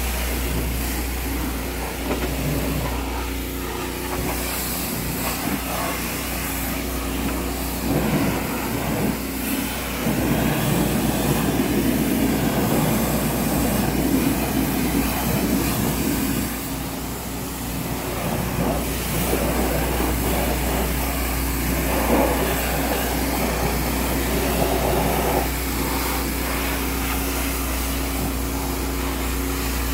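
Pressure washer running: a steady motor-and-pump hum under the hiss of the water jet hitting a truck's wheels and underside. The spray is louder and rougher in two middle stretches.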